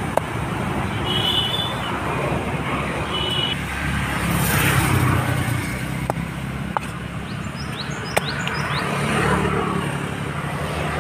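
Steady traffic and street noise, with a few sharp knocks of a heavy knife chopping chicken on a wooden block.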